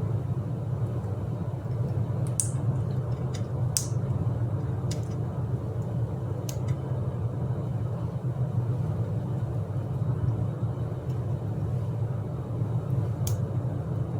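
A steady low hum with about five sharp, separate clicks, spaced a second or more apart.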